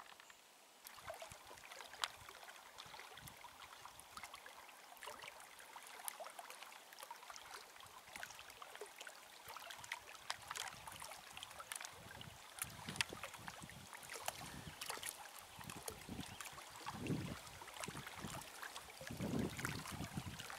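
Faint water sounds from a canoe being paddled: drips and light splashes with small ticks, and a few soft low swells near the end.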